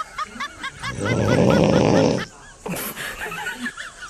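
Loud rough snoring: one long snore about a second in, lasting about a second, with a rapid high chirping repeating several times a second throughout.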